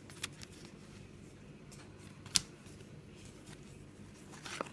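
Thin trading cards handled and slid past one another by hand, giving soft rustles and a few small clicks, with one sharp card snap a little over two seconds in.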